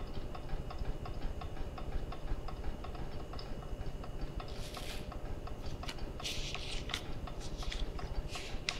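Fast, steady clock-like ticking. Over it, paper banknotes rustle in short bursts as they are handed over and counted, several times in the second half.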